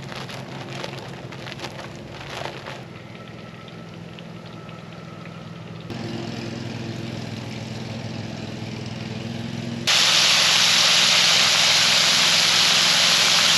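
Frog legs being shaken in flour batter in a plastic bag, rustling faintly over a steady low hum. About ten seconds in comes loud, even sizzling of battered frog legs deep-frying in hot oil in a skillet.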